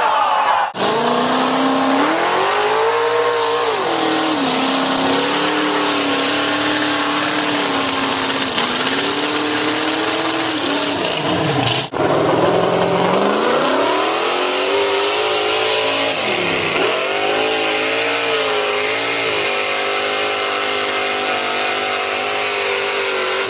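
Mud-bog trucks' engines revving as they plow through a mud pit, the engine note climbing and falling as the throttle is worked, over a steady rush of noise. The sound breaks off abruptly twice, about a second in and near the middle, as one truck's run gives way to another's.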